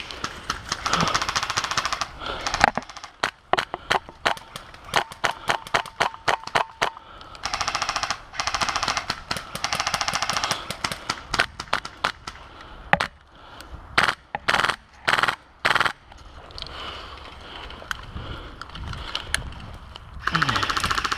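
Airsoft guns firing: rapid full-auto bursts of a second or two, with runs of separate single shots between them.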